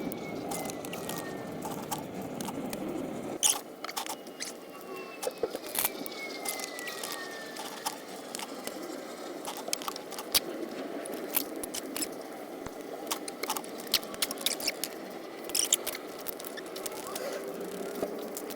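Hand tools working on the bolts of a motorcycle engine's stands: irregular clicks and metal taps, with two long squeaks that fall in pitch.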